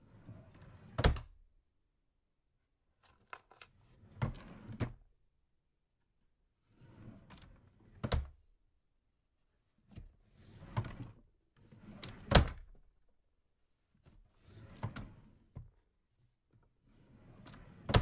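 A small drawer slid open and shut about seven times, each slide a brief rumbling scrape that ends in a sharp knock as the drawer stops.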